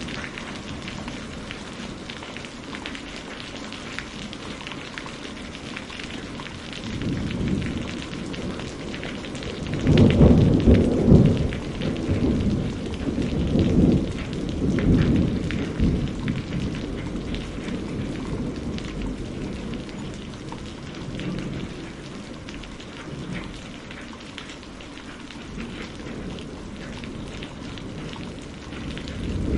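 Steady rain falling, with rolling thunder: a faint rumble about seven seconds in, then a long, loud roll from about ten seconds in that dies away over several seconds, and another building at the end.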